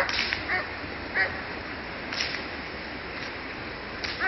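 A Briard gripping a bite sleeve lets out short, high, nasal whines, four of them, the last near the end, with a few sharp cracks between.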